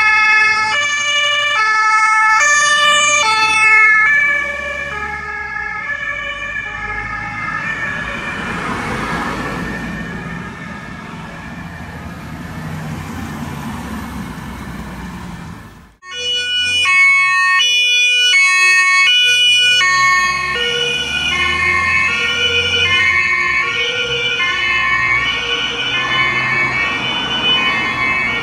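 German two-tone emergency-vehicle sirens (Martinshorn) on Red Cross vehicles, stepping back and forth between two pitches. They are loud at first, fade to a quieter, muffled stretch after about four seconds, break off sharply about halfway through, then sound loud and clear again.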